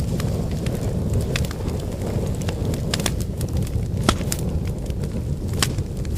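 Firewood fire burning: a steady low rumble of flames with sharp pops and crackles of burning wood at irregular intervals, two of them louder about four and five and a half seconds in.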